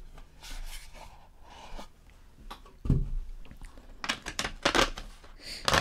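A white paperboard gift box and its card insert being handled and slid against each other: light rustling, a dull bump about three seconds in, then several sharp scraping rustles near the end.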